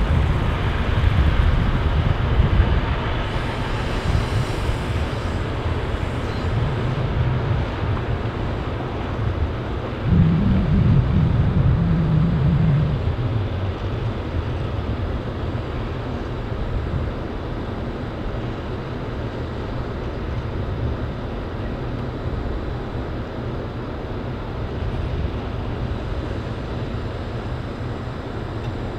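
Volvo FH13 540 trucks' 13-litre six-cylinder diesel engines running as the trucks pull their wood chip trailers slowly through the yard. The engine noise swells for about three seconds, ten seconds in, then settles to a steady running sound.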